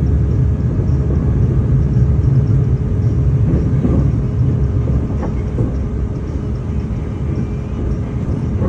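Steady low rumble of a moving vehicle, with a faint steady hum and a few light knocks in the middle.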